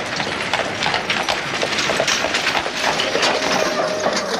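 Horses' hooves clattering and a horse-drawn carriage rattling along, a dense run of quick, irregular knocks over a steady rumble.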